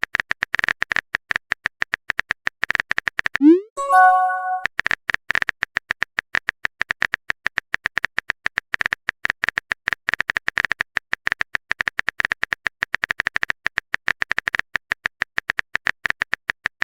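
Rapid typing clicks of a phone-keyboard sound effect, many a second, pausing about three and a half seconds in for a short rising swoop and a bright chime of a text-message alert before the typing resumes.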